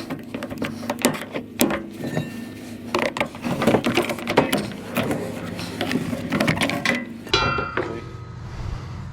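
Hand tools clicking, clanking and scraping against scrap metal parts as they are taken apart, a dense run of sharp knocks that gives way near the end to a lower, steadier sound.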